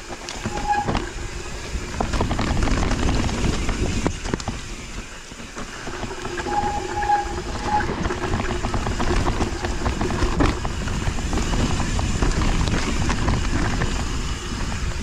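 Mountain bike descending a dirt trail: steady tyre rumble with constant rattling and clattering of the bike over roots and bumps. Short squeals from the disc brakes come about half a second in and again for about a second in the middle.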